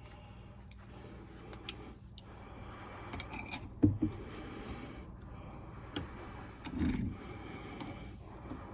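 Metal tools and parts being handled and set up in a bench vise: a few scattered clinks and knocks, the loudest pair about four seconds in and a duller knock near the end, over faint background noise.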